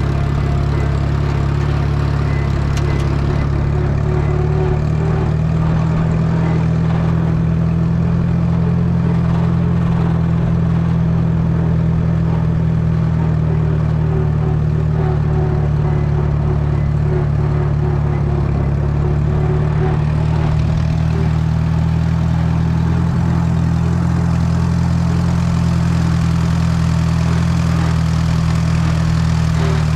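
Allis-Chalmers WD tractor's four-cylinder engine running steadily while hauling a loaded brush trailer, its revs rising slightly about three seconds in.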